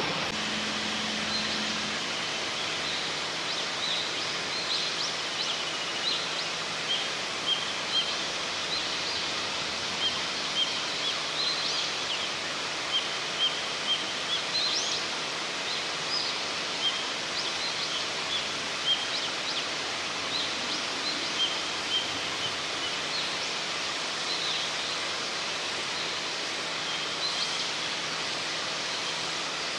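Outdoor ambience: a steady rushing noise with short, high bird chirps every second or two.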